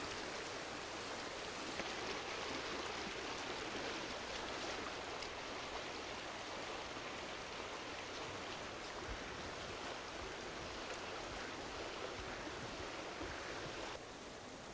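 Shallow stream running over rocks in a riffle: a steady rush of water, dropping to a quieter level near the end.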